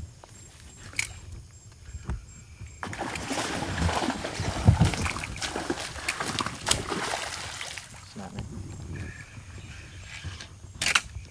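A hooked fish thrashing at the surface of shallow water, splashing hard for about five seconds. The splashing starts about three seconds in and is loudest near the middle before it dies away.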